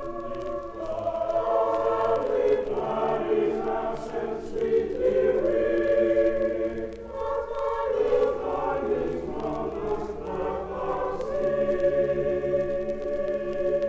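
Boys' chapel choir singing a Christmas carol in part harmony, with held notes that move together in pitch. It is played from a vinyl LP, with faint surface clicks.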